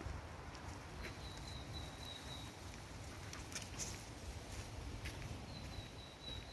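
Footsteps and light rustling in fallen leaves, with a low rumble underneath. A small bird gives a thin, high, slightly trilling call twice, each lasting over a second, about a second in and again near the end.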